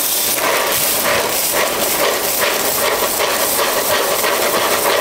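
Pouring into a bowl of Cocoa Pops cereal: a steady hiss dotted with many small ticks.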